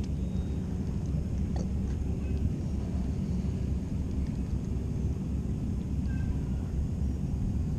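A boat motor running steadily with a low, even rumble while the boat moves across the water.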